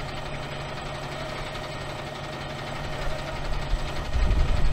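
Concrete mixer truck's diesel engine running steadily, its low rumble growing louder toward the end.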